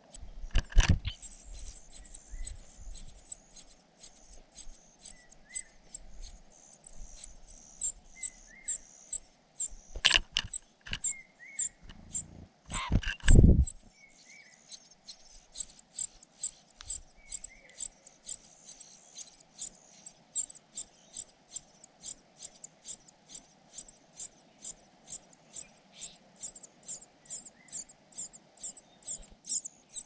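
Cuckoo nestling begging with a steady run of thin, very high-pitched calls, about three a second. A few loud dull thumps break in, one about a second in and two more between ten and fourteen seconds.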